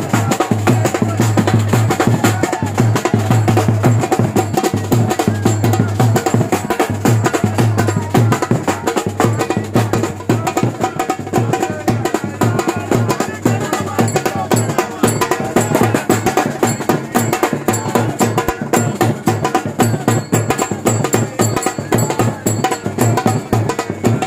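Music with a busy, steady percussion beat.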